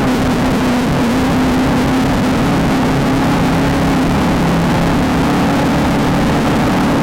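Desert off-road race car's engine running hard at a fairly steady speed, edging up near the end, over a constant rush of wind and rattle from the rough ground.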